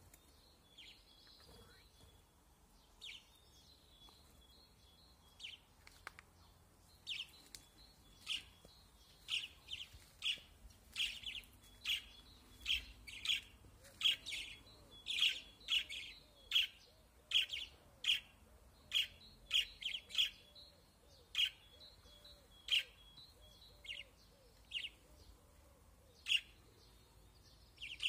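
Small caged birds chirping: short, sharp, high calls repeated, sparse at first, then coming about two a second through the middle before spacing out again.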